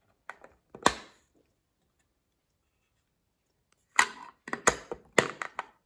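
Small 3D-printed plastic box being handled: two sharp clicks just under a second in as the printed clasp is worked, then a quick run of plastic clicks and knocks from about four seconds in as the lid is lifted on its filament hinges.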